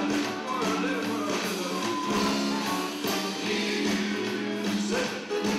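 Live band music: electric bass and strummed guitars playing a song, with singing.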